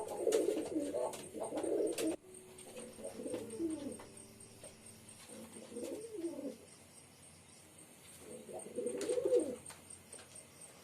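Domestic pigeons cooing: overlapping rising-and-falling coos for the first two seconds, then single coos every second or two.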